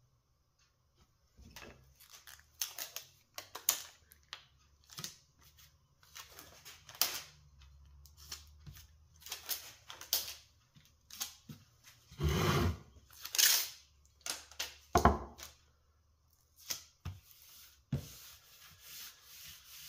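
Packing tape being torn off the roll and rubbed down onto thin wood sheets by hand: irregular tearing and rubbing sounds with light handling knocks, the loudest tearing strips about two-thirds of the way through.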